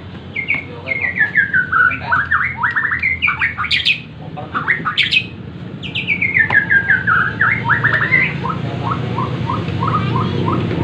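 Bornean white-rumped shama singing loudly: fast runs of repeated notes that step down in pitch, broken by sharp rising whistles, in the rapid 'tembakan' bursts copied from a prinia's call. Near the end the song turns to a slower string of short, evenly spaced notes, about two a second.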